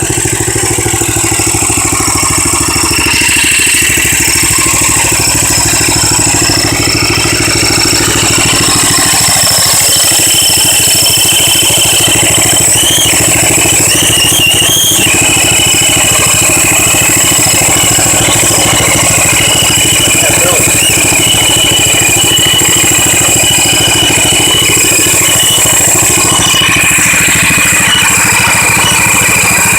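10 hp Tecumseh single-cylinder engine on a garden tractor running steadily on a freshly fitted carburetor, picking up slightly a few seconds in.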